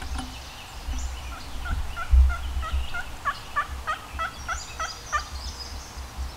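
Wild turkey calling: a run of about a dozen short, evenly spaced notes, roughly three a second.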